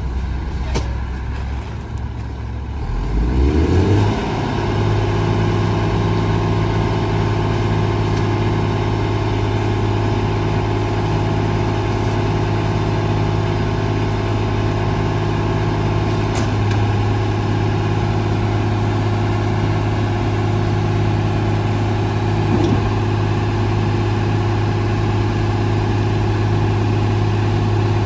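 Rear-loader garbage truck's engine speeding up about three seconds in, then running steadily at raised revs.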